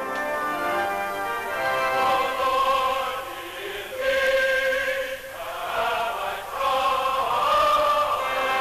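Church choir singing in long, held chords that change every few seconds.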